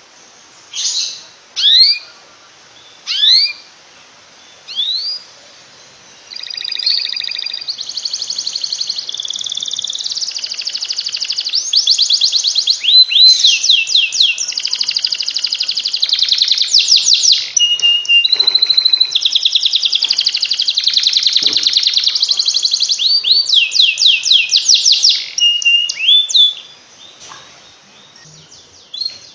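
Canary singing. First come single rising chirps about every second and a half. About six seconds in, a long unbroken song of fast trills and rolled phrases starts, runs for some twenty seconds, and breaks back into single chirps near the end.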